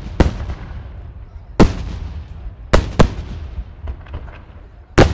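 Aerial firework shells bursting overhead: about five sharp bangs at irregular intervals, two of them close together midway, each trailing off in a fading rumble, with a few faint crackles between.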